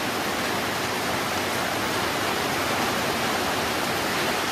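Heavy rain falling on a corrugated metal roof, a steady even hiss.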